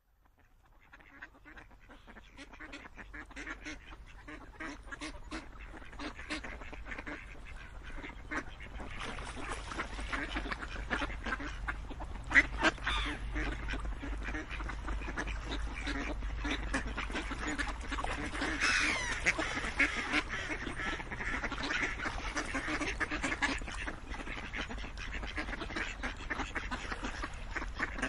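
A flock of ducks quacking and chattering in a dense, overlapping chorus that fades in from near silence over the first several seconds. One brief, sharp, louder sound stands out about twelve seconds in.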